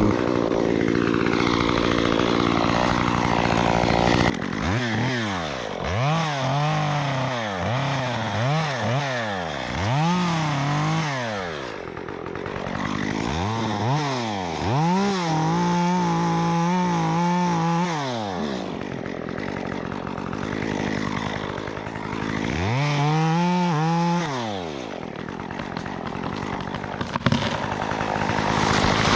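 Stihl MS 194T two-stroke top-handle chainsaw with a 1/4-inch chain conversion, running steadily at high revs for about four seconds. It is then revved up and down repeatedly, held high for a few seconds around the middle, and drops back toward idle between the revs.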